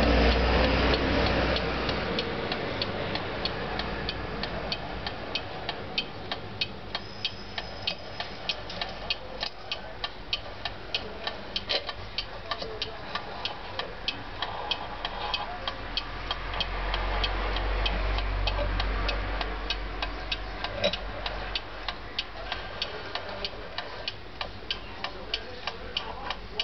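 Junghans mechanical alarm clock movement ticking fast and evenly. A low rumble sits under the ticks in the first couple of seconds and again in a stretch past the middle.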